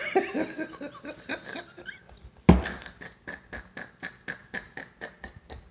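A man laughing hysterically without words: short voiced chuckles, then a sudden gasping burst about two and a half seconds in and a rapid run of breathy wheezes, about five a second.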